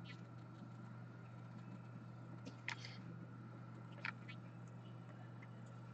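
Faint handling of trading cards: a couple of soft clicks and rustles, near the middle and about four seconds in, over a low steady electrical hum.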